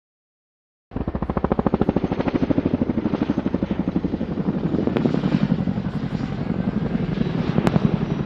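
Boeing Chinook HC.6 tandem-rotor helicopter in flight, its rotors beating out a fast, even blade slap. The sound cuts in abruptly about a second in.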